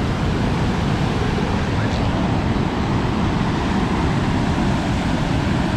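Whitewater rapids of a waterfall rushing past at close range: a loud, steady roar that does not let up.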